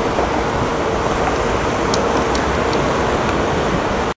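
Steady rushing jet-engine noise from a four-engined Airbus A380 taxiing, with a faint steady hum under it.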